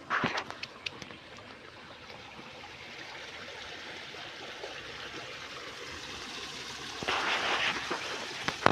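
Water flowing steadily along a small irrigation channel, an even rush. Short louder bursts of splashing or knocking break in just after the start and again about seven seconds in.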